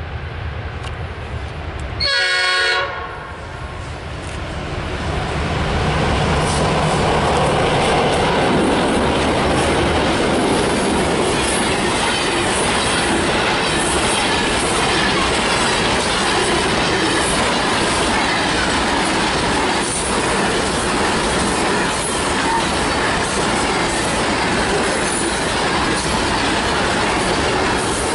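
Freight train hauled by vintage S-class-led diesel locomotives: the engines rumble on approach, and the lead locomotive gives one short horn blast about two seconds in. From about four seconds the noise swells into the steady run of loaded grain hopper wagons passing close, with wheels clicking over the rails.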